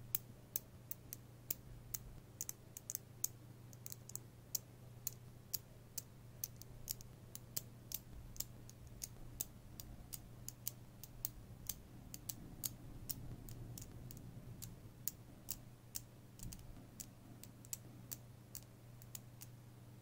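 Small neodymium magnet balls clicking as they snap together, pressed by hand onto a magnetic-ball sheet: sharp, irregular clicks, a few a second, over a faint steady low hum.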